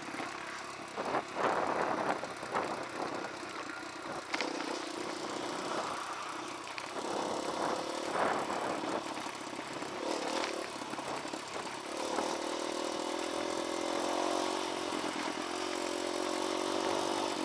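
Dirt bike engine running while being ridden. Its note settles into a steady tone over the last several seconds.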